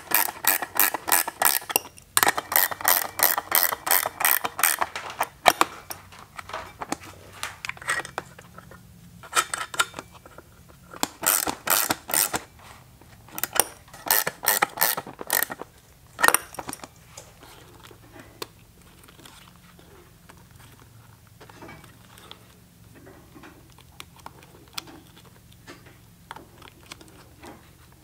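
Rapid, even ratcheting clicks come in several runs of a few seconds each, as fasteners are worked. After about 16 seconds only sparse, quieter clinks of parts being handled remain.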